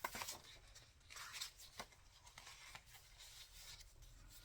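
Faint rustling and crinkling of paper as journal pages and paper pieces are handled, a few soft crinkles in the first two seconds and then almost quiet.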